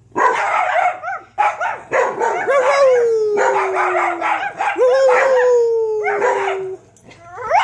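Several dogs barking in a jumble, with two long howls that slide down in pitch, one starting about two and a half seconds in and the other about five seconds in.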